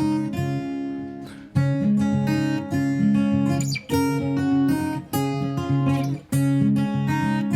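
Background music: a strummed acoustic guitar track.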